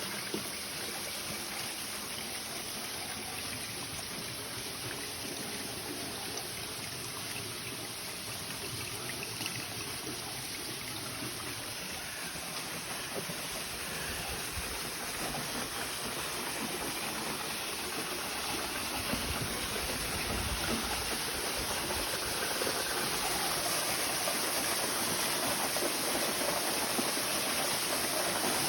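Steady rush and splash of running mountain water from a small waterfall and stream, growing a little louder over the second half.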